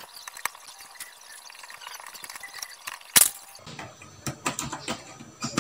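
Handling noise from hands working motor wires and small parts: scattered light clicks and rustling, with one sharp knock about three seconds in.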